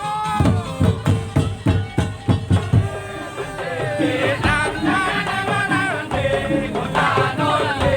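Madurese tong-tong ensemble playing: rapid drum and slit-drum strokes, then a wavering, bending melody line over steady percussion from about three seconds in.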